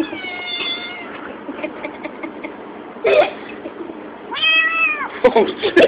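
Kitten giving drawn-out, whining meow-growls while eating: one cry about a second long at the start, a short one about three seconds in, and another near the end, falling in pitch as it closes. These are the possessive noises of a kitten guarding its food.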